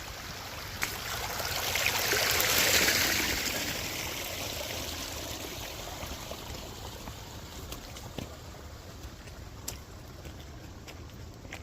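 Waterfall water rushing and splashing steadily, swelling louder about two to three seconds in and then easing off.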